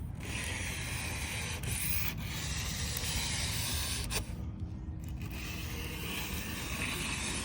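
Fine-grit aluminum oxide plumber's emery cloth rubbed by hand along the edge of a Tesla Cybertruck's stainless steel body panel, smoothing its rough factory edge: a steady scratchy sanding hiss, with a short break a little after four seconds in.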